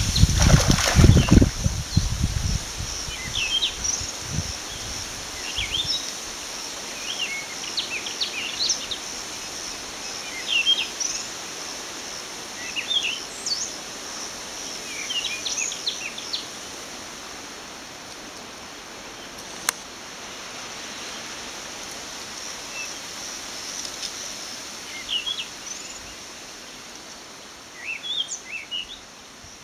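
Small birds chirping in short, scattered calls over a steady high insect buzz. A burst of low rumbling, like wind buffeting the microphone, fills the first couple of seconds.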